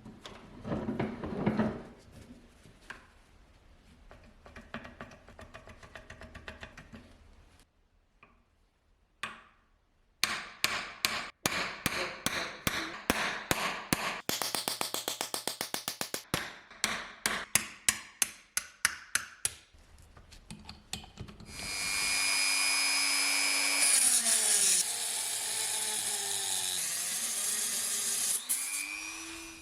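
Hand-tool work on the old axe: scattered knocks and scrapes, then a fast run of sharp repeated strokes. About two-thirds of the way in, a power tool starts and runs steadily until just before the end.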